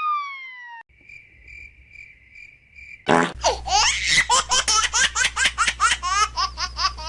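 Cartoon sound effects: a falling whistle glide dies away, then a cricket-like chirping tone pulses for about two seconds, then high-pitched, fast baby-giggle laughter starts about three seconds in.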